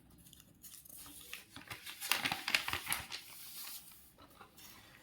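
Faint, irregular crackling and crinkling, a dense scatter of small clicks that swells in the middle and fades away.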